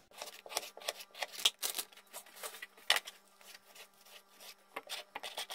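Kitchen knife dicing salmon on a wooden cutting board: irregular taps of the blade on the board, several a second.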